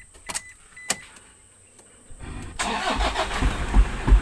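Two sharp clicks and a few short high beeps, then a vehicle engine starting about two seconds in and settling into a loud, steady low running rumble.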